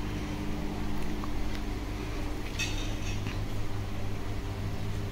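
Faint crunches and clicks of crisp pani puri shells being dipped and eaten, a small cluster of them about halfway through, over a steady low hum.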